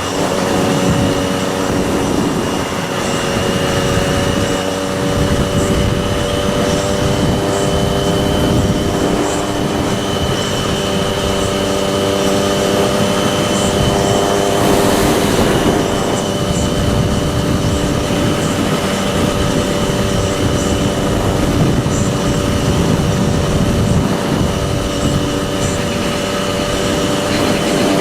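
Triumph Daytona 675R's inline-three engine running at steady cruising revs, with wind rushing past. A brief swell of rushing noise comes about halfway through.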